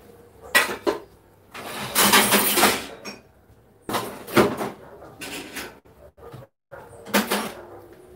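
Dishes and cutlery being handled: a series of separate clinks and knocks, with a longer, noisier clatter of about a second starting about two seconds in.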